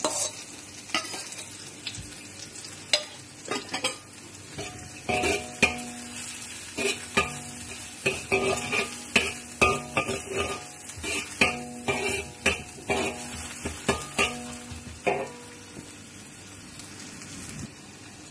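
A metal spatula scraping and clinking against a wok as diced ginger, onion and garlic sizzle in butter and oil. The scraping comes thick and fast through the middle, then eases off near the end, leaving the sizzle.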